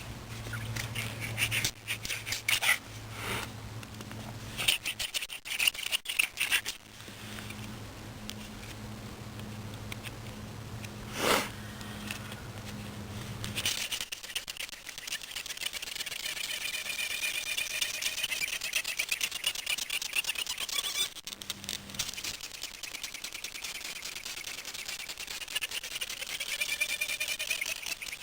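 Hand drill friction fire: a cattail spindle twirled between the palms in a willow hearth board, giving rapid, irregular scratching and rubbing strokes. In the second half this turns into a denser, steadier grinding with a wavering high squeak that rises and falls.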